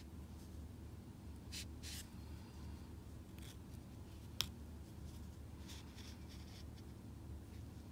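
Faint handling sounds of crocheting: soft rustles and scrapes of yarn and crochet hook, with one sharp click a little past halfway, over a low steady hum.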